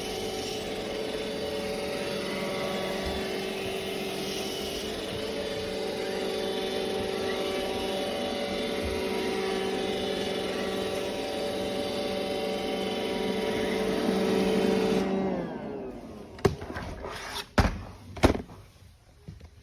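A vacuum motor running steadily with a whine and a hiss, then winding down about 15 seconds in, followed by a few sharp clicks and knocks. It is vacuuming out hair caught in the passage between a robot vacuum's dustbin and its brushes.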